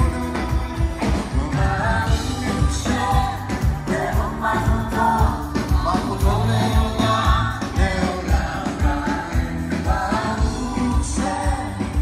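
Live worship band music with singing, over electric bass and a steady drum beat.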